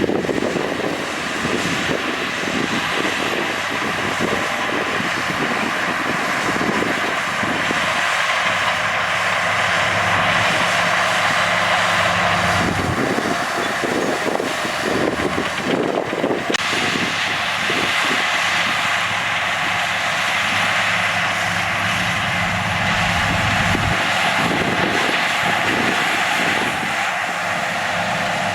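Heavy diesel earthmoving machinery running steadily, a continuous engine drone with a strong hiss over it. The sound shifts abruptly about two-thirds of the way through.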